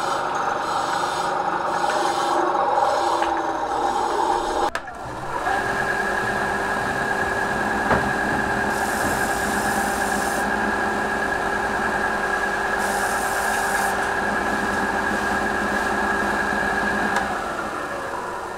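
Benchtop band saw running and cutting a small block of wood into thin strips. About five seconds in the sound cuts abruptly to another steady power-tool motor with a constant whine, which fades away near the end.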